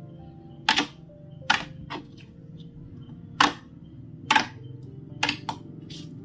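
Thick slime being worked by hand, giving sharp popping clicks every second or so, over soft background music.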